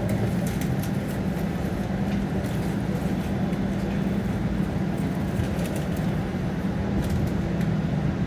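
Inside a TTC streetcar on the move: a steady electric motor hum over wheel-on-rail rumble, with scattered clicks and rattles.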